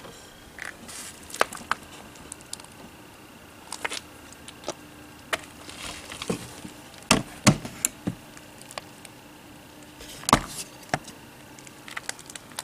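Sharp clicks and knocks of a hinged metal power-inlet panel on an RV being handled, swung shut and seated in its compartment opening. The loudest knocks come in a pair about halfway through and again about ten seconds in.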